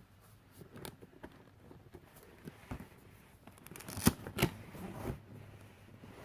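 Cardboard toy box being handled: faint scrapes and light clicks, with two sharper taps about four seconds in.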